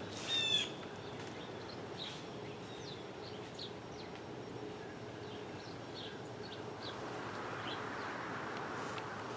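Birds chirping, with one louder call in the first second and short scattered chirps after it, over a steady low hum.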